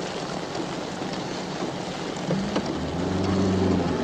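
Rain falling steadily on a car, heard from inside the cabin; a little after two seconds in, the car's engine note comes up and rises over it.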